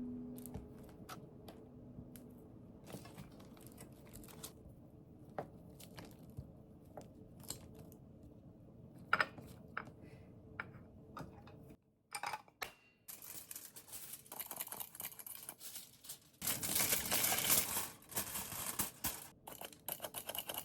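Kitchen handling sounds during cake-batter preparation: scattered light clicks and taps, then about two-thirds of the way through a dense run of rustling, crackling noise that is loudest for a couple of seconds near the end.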